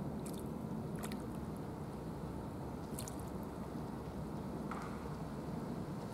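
A hooked sevenband grouper struggling at the water's surface, making a few short wet splashes and slaps, over a steady low background rumble.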